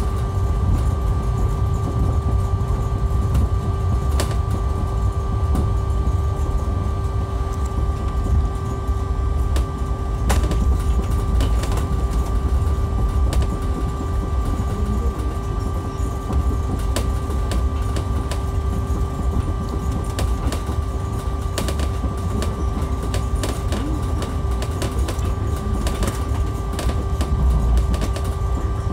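Heathrow ULTra personal rapid transit pod, a small battery-electric driverless vehicle, running along its concrete guideway, heard from inside the cabin. A steady low rumble from the rubber tyres and two steady whining tones, with scattered light clicks and knocks.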